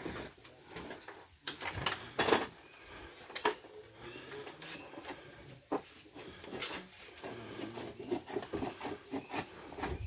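Scattered knocks, taps and rubbing of bamboo at irregular intervals, the sharpest knocks about two and a half and three and a half seconds in.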